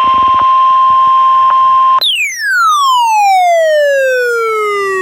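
NOAA Weather Radio 1050 Hz warning alarm tone of a weekly test, coming through a weather radio receiver's speaker. It holds one steady pitch and cuts off about two seconds in. It is followed at once by a loud tone with overtones that glides steadily downward in pitch.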